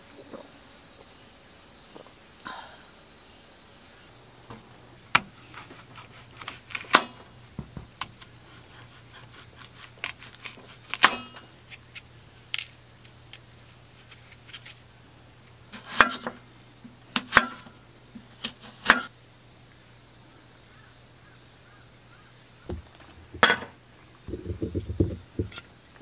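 Sharp clicks and knocks of objects being handled, a few at a time, over a steady high drone of insects that breaks off and comes back. A low steady hum comes in about four seconds in, and a quick run of knocks falls near the end.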